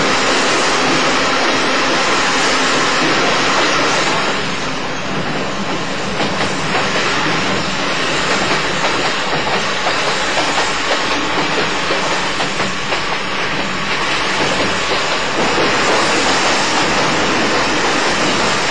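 JNR 80-series electric train, motor car MoHa 80342, running along the line: a steady rush of running noise with the clickety-clack of wheels over rail joints. The noise eases a little about four seconds in, then pulses with the joint clacks.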